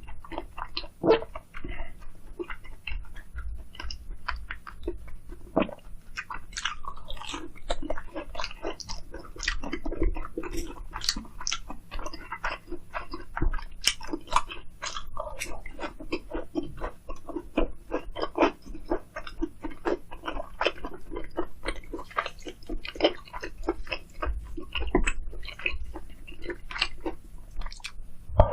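A person chewing and biting food, with many short, crisp crunches and wet mouth clicks in quick succession.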